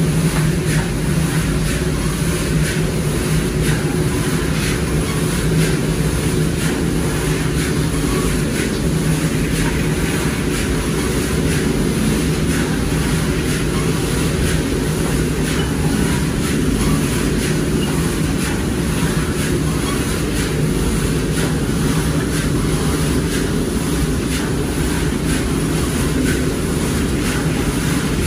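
Motor-driven drum roaster for black chickpeas running steadily: a continuous mechanical hum and rumble, with a fine rattle of the chickpeas tumbling inside the drum.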